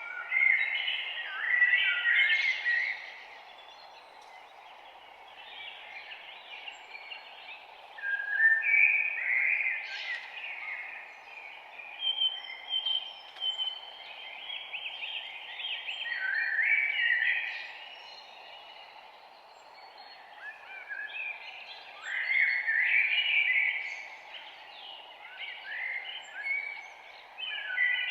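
Songbirds singing in repeated warbling phrases, each a second or a few seconds long, one after another, over a steady background hiss.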